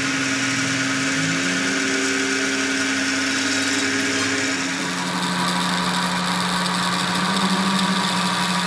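Metal lathe running, its chuck spinning a steel shaft while a cutting tool turns the shaft's end: a steady machine hum over a hissing cutting noise. The hum shifts to a lower note about five seconds in.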